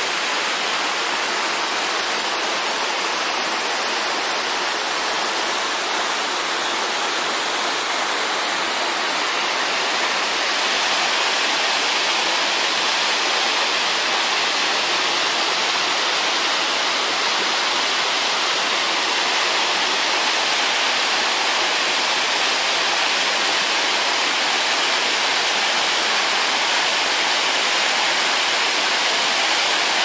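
Waterfall pouring down a rock face: a steady rush of water, a little louder from about ten seconds in.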